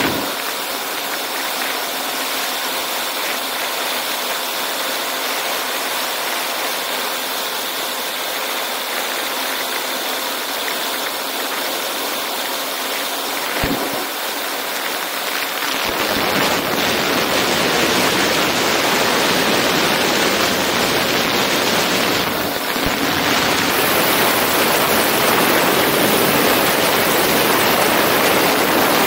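Wind rushing over an externally mounted camera on a Storch light aircraft in low flight, with the engine and propeller drone underneath. About halfway through the wind noise grows louder and deeper.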